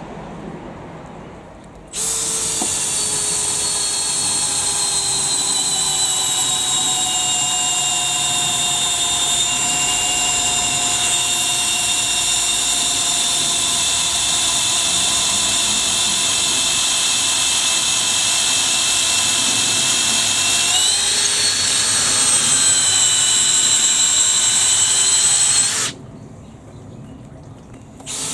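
Makita XPH06 cordless hammer drill in low gear boring a 10 mm auger bit into hard manuka wood. The motor whine starts suddenly and its pitch sags slowly as the drill works under load. It picks up again near the end, then stops abruptly.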